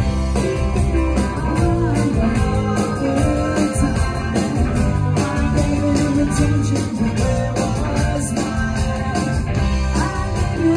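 Live rock band playing a song, with electric guitar, bass, drums and singing; the full band comes in louder right at the start.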